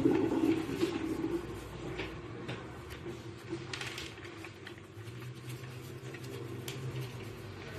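A steady low mechanical hum, louder in the first second and a half, with faint scattered taps as dough is shaped by hand on a stone countertop.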